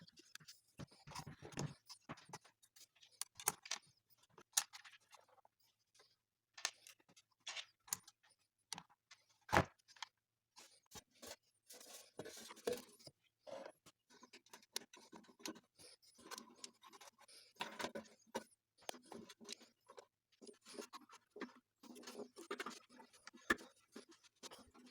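Scattered small clicks, taps and rattles of hands handling the bread maker's parts, with a sharper knock about ten seconds in.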